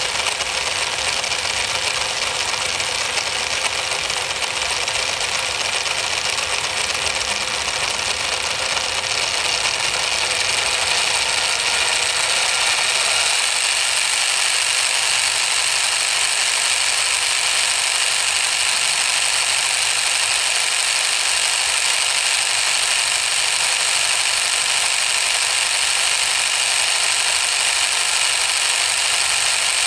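Miniature model single-cylinder diesel engine running, with a steady mechanical whirr and rattle that grows a little louder about ten seconds in.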